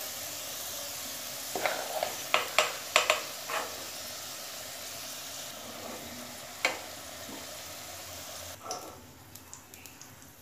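Potato pieces sizzling in hot oil in a nonstick kadai while a metal spoon scoops them out, knocking against the pan several times in the first few seconds and once more later. The sizzling dies down near the end as the pan empties.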